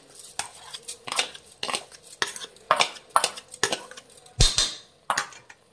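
Metal spatula clinking and scraping against a steel bowl as washed rice is pushed out into a pressure cooker: a string of sharp clinks, with a heavier knock about four and a half seconds in.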